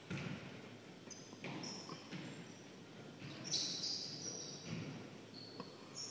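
Basketball shoes squeaking on a hardwood gym floor, several short high squeaks, loudest a little past the middle, mixed with the thuds of a basketball bouncing and players' footfalls.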